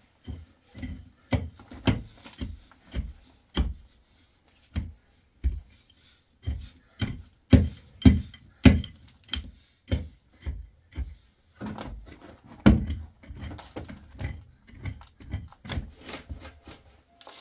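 A pickaxe chopping into packed dirt over and over, a dull thud roughly once a second with some strikes sharper and louder. Toward the end the strikes come quicker and lighter.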